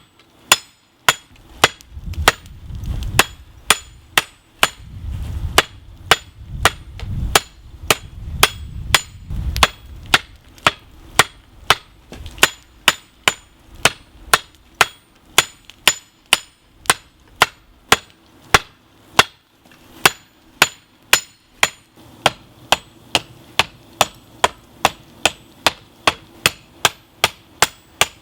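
Hand hammer forging hot lawn-mower-blade steel on an anvil: steady blows at about two a second, each with a short metallic ring. A low rumble sits under the blows for the first third.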